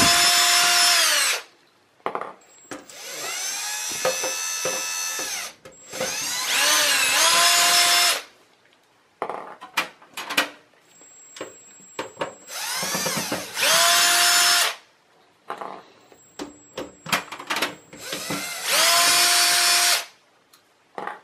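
Power screwdriver with a Phillips bit backing out the power supply's mounting screws from a steel PC case. It runs in about five separate bursts of one to three seconds, each a motor whine that rises as it spins up and drops as it stops. Light clicks and rattles fall between the runs.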